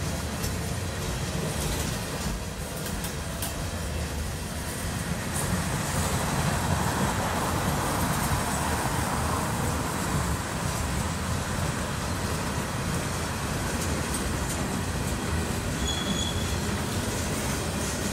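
Freight train cars rolling past on the track: a steady rumble of steel wheels on the rails, swelling slightly a few seconds in.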